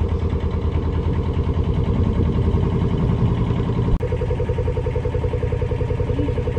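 Narrowboat's diesel engine running steadily at cruising revs, an even low throbbing beat. There is a brief dropout about four seconds in.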